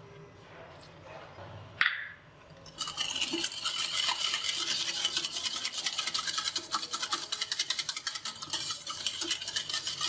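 Wire whisk beating cake batter in a bowl: quick, steady scraping strokes that start about three seconds in, after a single sharp knock just before two seconds.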